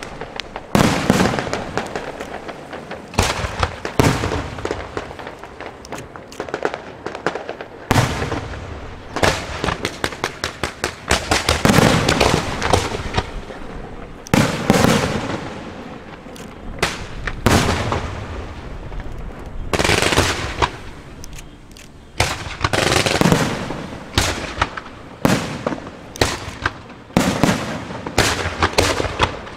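Aerial firework shells bursting in a continuous string of sharp bangs, each fading off in a rumble, with quick runs of rapid pops near the end.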